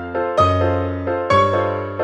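Background music on a keyboard: chords struck about once a second, each ringing out and fading before the next.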